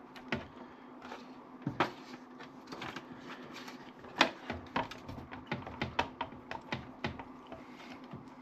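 Irregular clicks, taps and knocks of a stuck part being worked loose inside a desktop computer case, the sharpest knock a little past halfway.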